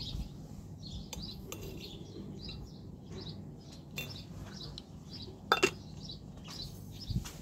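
Small birds chirping in short repeated calls, with a few sharp clicks, the loudest about five and a half seconds in.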